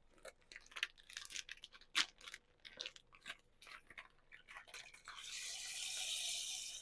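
A plastic bag of rice being crinkled and torn open, with many irregular sharp crackles, then near the end a steady hiss for about a second and a half as the dry rice grains are poured out.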